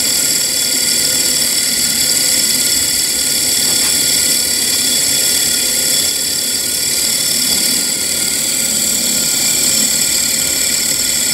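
Small model dynamo running as a two-pole DC motor on 3 volts from batteries: a steady high whine with many overtones at an even speed.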